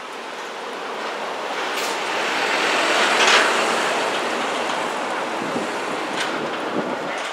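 Street traffic: a truck passes close by on the road, its noise swelling to a peak about three seconds in and then slowly fading.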